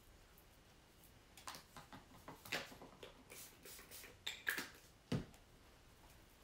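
Painting supplies being handled on a worktable: a run of light clicks, taps and scrapes starting about a second and a half in, then a dull knock about five seconds in as something is set down.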